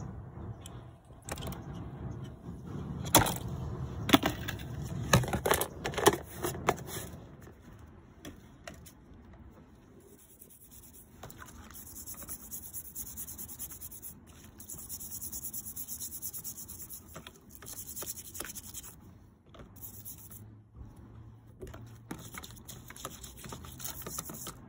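Knocks and clicks from the metal compass being handled in its tub, then a stiff brush scrubbing the compass legs in a soaking solution: a steady high scraping hiss with short pauses between strokes.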